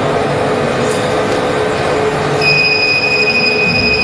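Automatic soldering machinery running with a steady noisy whir and a low hum; about halfway in, a steady high-pitched whine comes in and holds.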